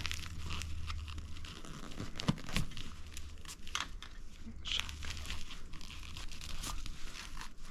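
Plastic airsoft shotgun shells being handled and pushed into a stiff Velcro shell holder: a run of small clicks, scrapes and crinkling rustles.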